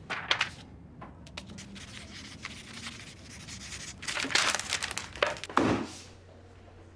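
Paper being handled, torn and crumpled: a burst of rustling at the start, scattered small crackles, then a louder stretch of crinkling from about four to six seconds in.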